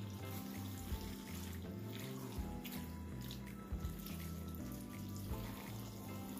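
Soft background music with slowly changing notes, over the wet squishing of a spoon stirring thick, creamy penne pasta in an enamel pan, with a few light knocks of the spoon against the pan.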